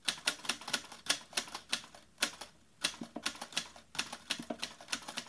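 Typewriter keystroke sound effect: a quick run of sharp key clicks, about four a second, with a couple of short pauses, as on-screen text types itself out letter by letter.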